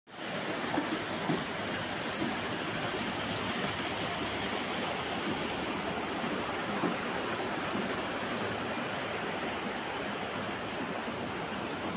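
Water rushing and splashing steadily where a wooden water wheel's outflow spills into a pond.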